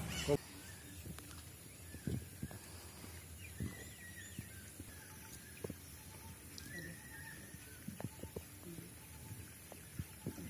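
Quiet open-air ambience with faint bird calls, now and then, and scattered soft knocks.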